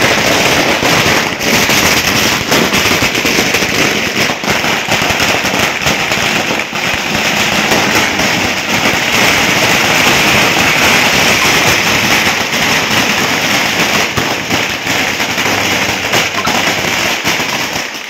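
Ground fountain firework ('flower pot') spraying sparks: a loud, steady hiss thick with crackles.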